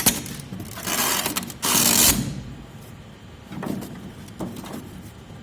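Electrical cable being pulled through the air conditioner's housing, scraping and rustling in two loud strokes in the first two seconds, then light clicks and rustles as it is handled.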